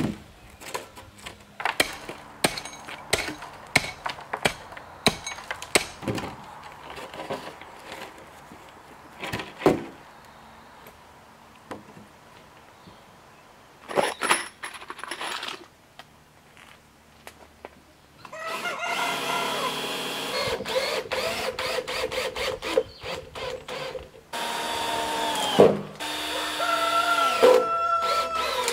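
Power drill running under load in several long runs through the second half, its pitch sagging and recovering as it works into the 2x8 lumber form boards. Before that come scattered sharp knocks and clicks of the boards being handled.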